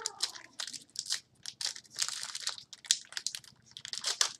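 Trading cards and their plastic packaging being handled: irregular crinkling and rustling.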